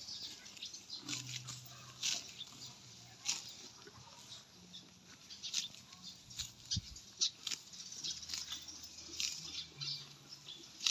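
Zebu cow grazing, tearing short grass with quick irregular crunching rips, several a second.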